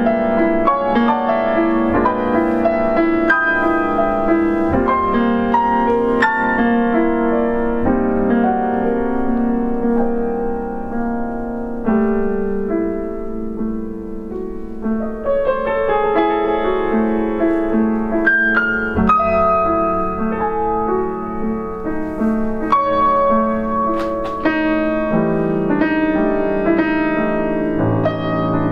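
Grand piano played solo in a contemporary classical piece: dense, overlapping sustained chords, a softer passage in the middle, a few sharp high notes, and deep bass notes coming in near the end.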